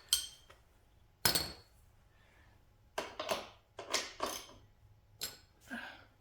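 Metal hand tools, sockets and wrenches, clinking as they are handled and knocked together: a string of short, sharp clinks at irregular intervals.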